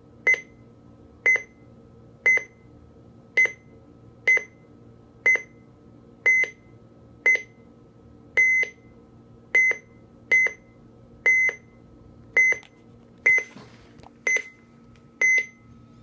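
Midland 74-200 weather radio's alarm clock beeping: about sixteen short, thin beeps, roughly one a second, whose spacing keeps drifting. The owner calls the alarm rather puny and puts its failure to hold a rhythm down to the design of its electronics.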